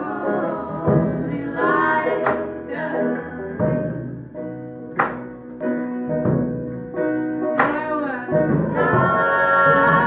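Folk band song: women's voices singing together in harmony over banjo, guitar, upright bass and drums, with a sharp accent about every two and a half seconds.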